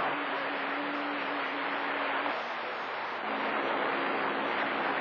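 CB radio receiving a distant skip signal on channel 28: steady radio hiss with a few faint low steady tones that drop out for about a second in the middle.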